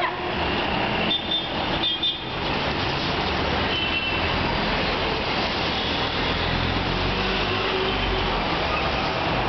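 Steady road traffic noise with a low rumble. A few brief high-pitched tones come through about a second and two seconds in, and again about four seconds in.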